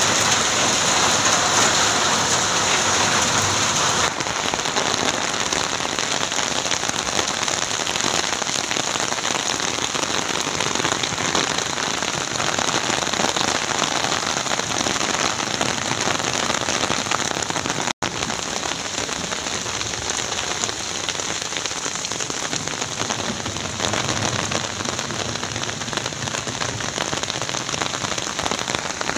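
Heavy rain falling steadily, a dense even hiss that cuts out for an instant once partway through.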